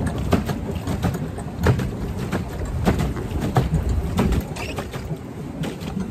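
Wind buffeting the phone's microphone on a small open boat, a rough low rumble with irregular knocks and splashes of water against the hull.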